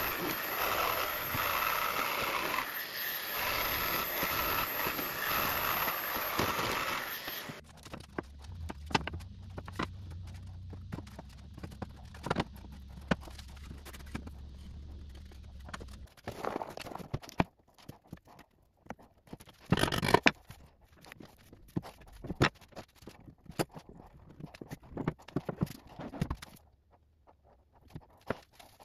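Corded jigsaw cutting a curve through a wooden board, a steady loud buzz that cuts off about seven seconds in. A low hum follows for several seconds, then scattered knocks and taps.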